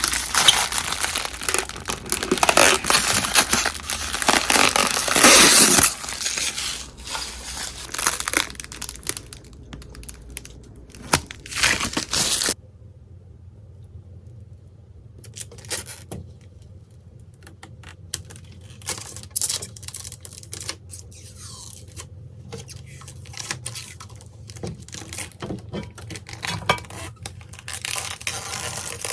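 Crinkling and tearing of handled material, dense and loud for the first few seconds, then scattered crackles. About twelve seconds in it drops abruptly to softer, sparser rustles and clicks.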